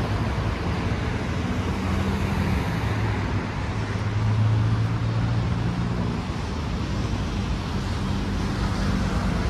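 Road traffic: car engines and tyres running past in a steady wash, with a low engine hum that swells about halfway through and then eases off.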